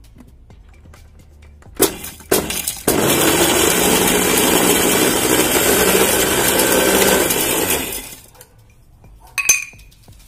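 Electric mixer grinder's small dry-grinding jar, grinding hard sugar-coated candies (Skittles and Gems) into powder. The motor is pulsed twice, then runs for about five seconds with the candy clattering against the blade and jar, then is pulsed once more briefly near the end.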